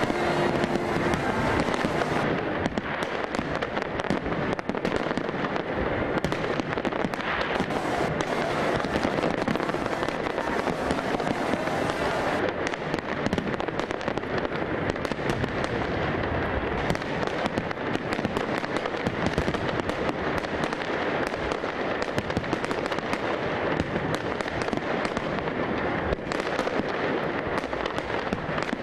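Fireworks going off in a dense, continuous barrage of bangs and crackles, many explosions a second with no letup.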